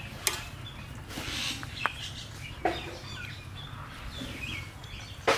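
Chickens clucking in short, repeated calls, with a few sharp clicks of metal spatulas against the cooking pot.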